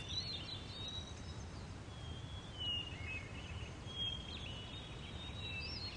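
Faint outdoor grassland ambience: birds give short chirps and whistles every second or so over a low, steady background hiss.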